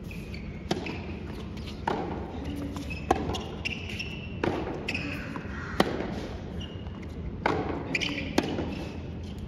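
Tennis rally: rackets strike the ball and the ball bounces on a hard court, about seven sharp cracks spaced roughly a second or so apart.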